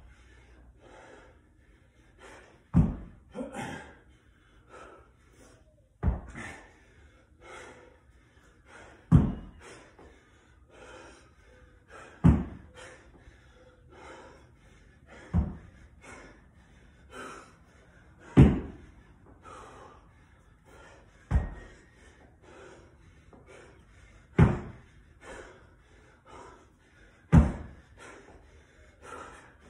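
A 50-pound dumbbell thudding onto a rubber floor mat about every three seconds, nine times, as its head touches down at the bottom of each single-arm snatch, with hard breathing between reps.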